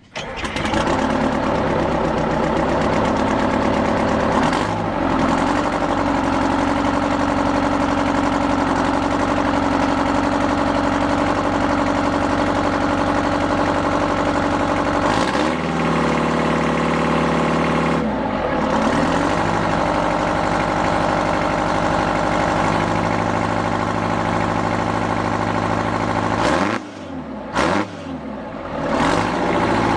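Vintage tractor engine running at a steady speed, with the engine note shifting several times. Near the end the sound briefly drops away sharply, then the engine comes back in.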